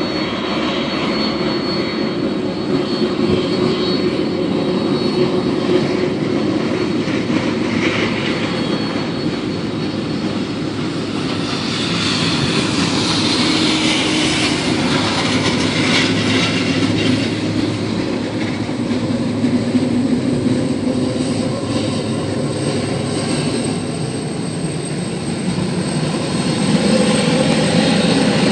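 Boeing 767 jet engines running as the airliner taxis: a steady rumble with a thin high whine. A van drives past close by around the middle.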